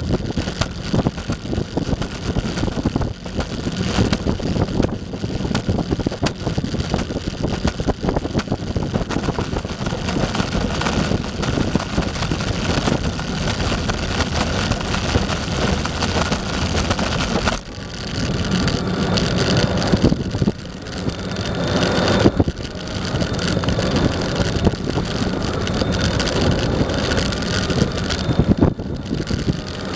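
Electric skateboard riding over pavement, heard from a camera mounted on the board: a steady, loud rumble of the wheels and drive, with wind buffeting the microphone.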